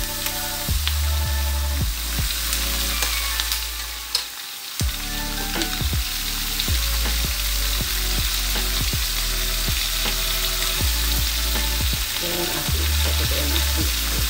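Potatoes, chopped chicken and onion sizzling in hot oil in a wok, a steady crackling hiss. At first a spatula scrapes and clatters against the wok as the food is stirred.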